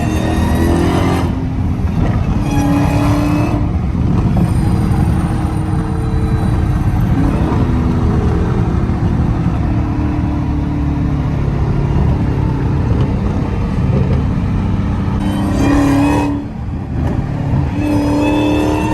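Supercharged Hellcat V8 cruising, with about four short throttle stabs where the supercharger whine rises in pitch over the engine note.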